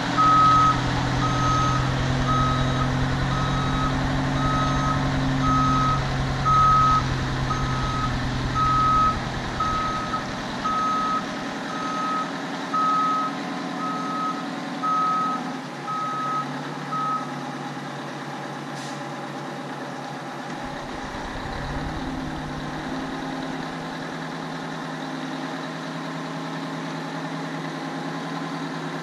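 Dump truck's backup alarm beeping a little over once a second as it reverses, over the steady running of its Detroit 8V92 two-stroke diesel. The beeping stops about two-thirds of the way through and the diesel keeps running.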